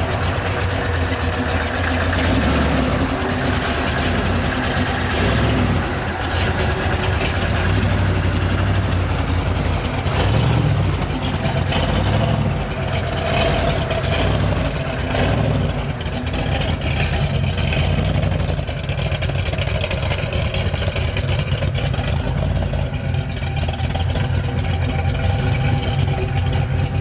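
Rock-crawler buggy's engine running continuously as the 4x4 crawls over boulders, the revs rising and easing as it works up the rocks.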